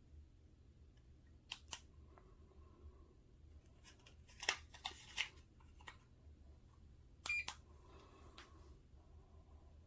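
A few sharp clicks and handling noises over a low steady hum: a pair about a second and a half in, a cluster of them around the middle, and a final pair near the end with a brief beep.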